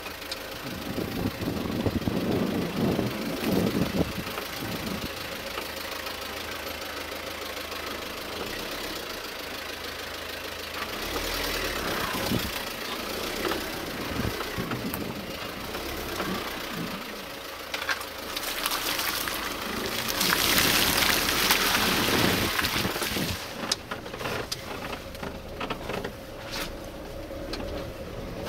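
A car driving slowly over a bumpy dirt forest track: the engine running low under light throttle, with knocks and rattles from the body and suspension, and a louder rushing noise for a few seconds about two-thirds of the way through.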